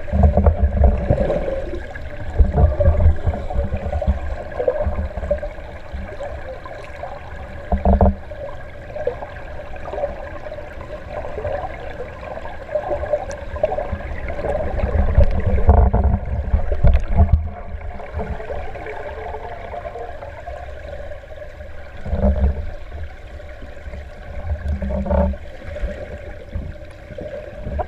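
A swimmer's strokes heard underwater in a pool: muffled rushing and gurgling water with irregular low surges as the arms and kicks churn past.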